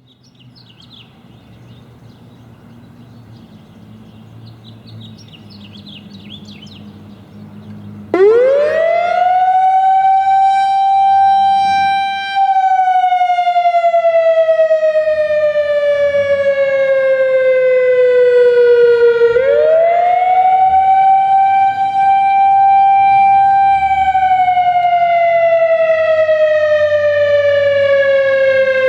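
Analog Whelen WS 3000-series electronic outdoor warning siren starting its wail test signal about eight seconds in. It winds up very quickly to a steady high tone and holds it for a few seconds, slides slowly down in pitch, then sweeps quickly back up and holds before sliding down again. The very fast windup marks the unit as analog.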